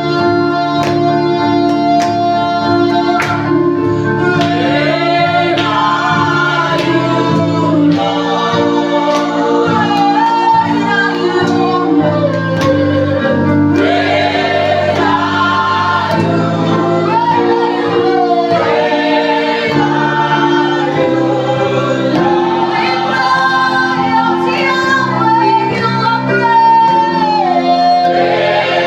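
A gospel praise-and-worship song: a group of singers over instrumental accompaniment, with held low chords underneath and voice lines that slide up and down between notes.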